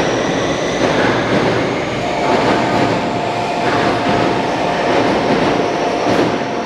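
Electric commuter train running slowly over curved track and points, a steady rail noise with a level high whine setting in about two seconds in.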